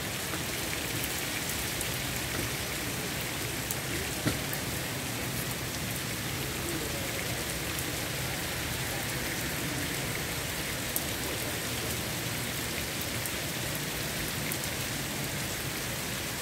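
Steady rain from a sudden downpour, falling on roofs, trees and pavement. Two brief sharp ticks stand out, one about four seconds in and another about eleven seconds in.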